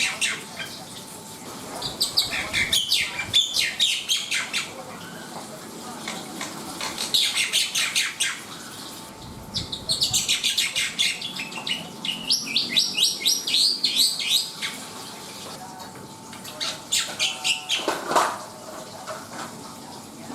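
Black-winged starling (jalak putih) singing: several phrases of fast, repeated chattering and whistled notes, broken by short pauses.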